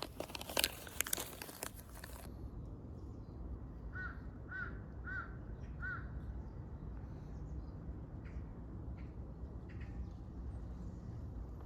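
Crinkling and clicking for about the first two seconds, then a steady low background rumble. Over the rumble, a bird gives four short, arched, high calls in quick succession about four seconds in.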